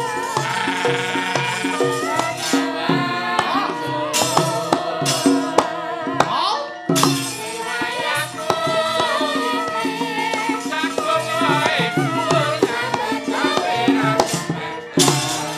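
Javanese gamelan playing fast battle music, with sharp metallic clashes from the dalang's kepyak plates marking the blows of a puppet fight. The music breaks off briefly about seven seconds in, then starts again.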